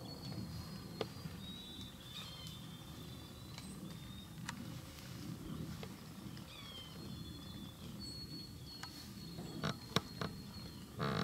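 Quiet woodland ambience: thin, high bird calls, some with a short falling slide, over a low steady rumble, with a few sharp clicks near the end.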